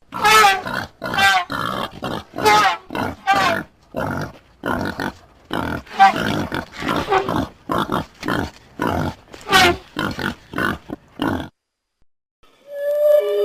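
Animal sound effect: a quick run of short, pitched animal calls, about two a second, that cuts off suddenly near the end.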